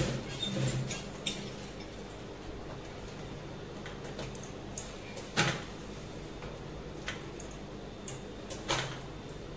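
An industrial sewing machine stops stitching within the first second, leaving a faint steady motor hum. Scattered clicks and clatters follow as the fabric is shifted and handled around the machine, the loudest about halfway through.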